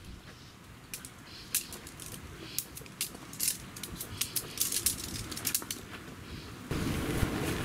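Aluminium tent pole being taken apart and folded, its sections clicking and clinking against each other in a run of light metallic clicks. Near the end a steady rush of wind noise on the microphone takes over.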